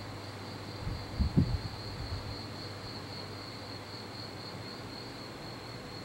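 Steady high-pitched chirring drone over a low hum, with a few dull low bumps about a second in.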